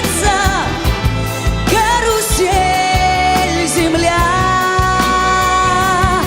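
Pop-symphony orchestra with drums playing while a woman sings long held notes over it, the second one higher than the first.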